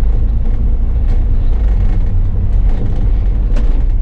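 Bus engine running, heard from the driver's cab as a steady low rumble, with a couple of faint knocks or rattles.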